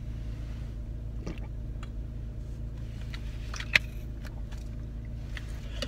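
Car engine idling steadily, heard from inside the cabin, with a few light knocks and one sharp click about two-thirds of the way through.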